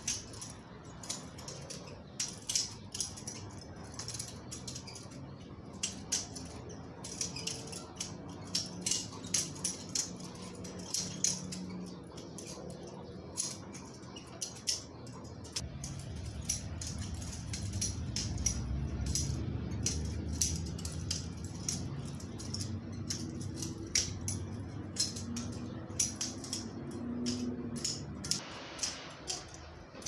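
Balisong (butterfly knife) being flipped open and closed, its handles and blade clicking and clacking against each other in quick irregular runs. A low hum sits underneath in the second half.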